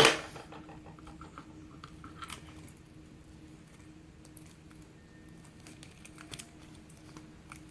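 Small clicks and light scraping of a pin tumbler lock being taken apart by hand over a pinning tray. One sharp click comes right at the start, followed by a quick run of tiny ticks and a few scattered faint clicks.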